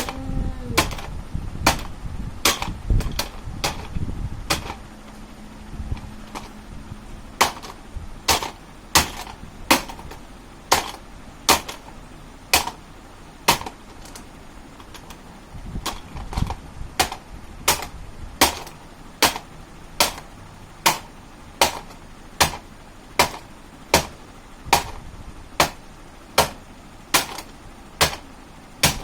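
Sharp cracking impacts repeated at an even pace, about one and a half a second, with a low rumble under them during the first few seconds.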